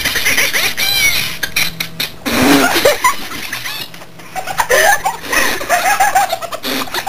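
A woman laughing hard in high, squeaky fits, with gasps and short breaks between them.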